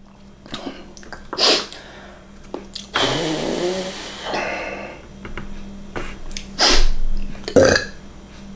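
A man blowing out a long breath through puffed cheeks and pursed lips, lasting over a second, with shorter breaths and small clicks around it: the sigh of someone uncomfortably full from eating.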